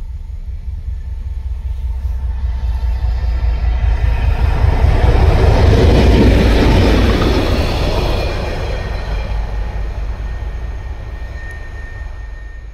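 TEM2 diesel-electric locomotive hauling a track tamping machine passing by: a low diesel rumble and wheel noise on the rails that builds, is loudest as it goes by about six seconds in, then fades as it runs away.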